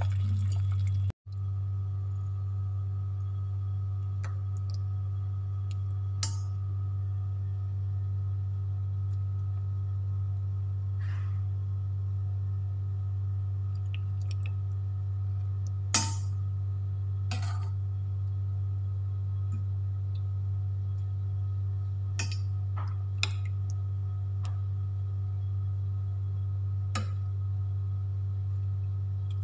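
A steady low hum with faint evenly spaced overtones, starting after a brief cut about a second in. A metal ladle clinks lightly against the pot and bowl a few times as soup is served, the sharpest clink about sixteen seconds in.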